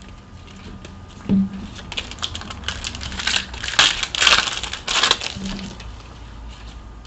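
Panini Prizm trading cards being handled: a soft knock just over a second in, then a run of quick clicks and rustles from about two to five seconds in as the cards are slid and flipped through.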